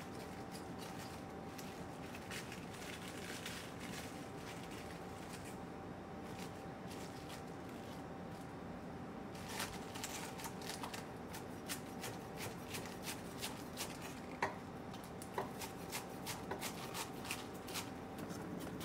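Cabbage leaves rustling as they are pulled apart by hand. From about halfway through, a chef's knife shreds cabbage on a wooden cutting board: a quick run of crisp cuts, with the blade now and then knocking on the board.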